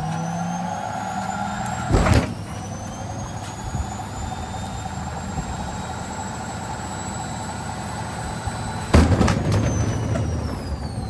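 Elin washing machine on spin, its motor and drum giving a high whine that climbs to full spin speed and holds steady. There is a loud bang about two seconds in, then another about nine seconds in, after which the whine falls as the spin winds down.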